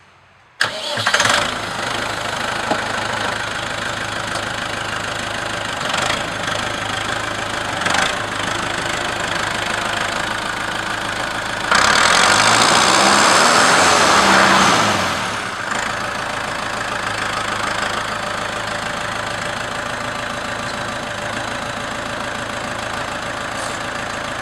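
2010 Case IH Farmall 80 tractor's 3.9-litre four-cylinder diesel engine starting up about half a second in and idling. Around the middle it is revved for about three seconds, the pitch rising and falling, then drops back to a steady idle.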